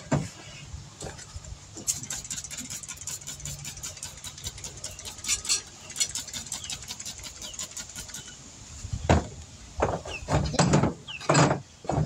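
A hand spray bottle squirting many quick spritzes onto a motorcycle wheel rim, followed near the end by a few thumps and rubbing as the tire is set down on the rim.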